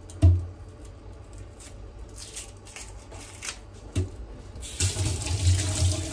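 A dull thump just after the start and a knock about four seconds in, then a kitchen tap opened, with water running into the sink for the last second or so.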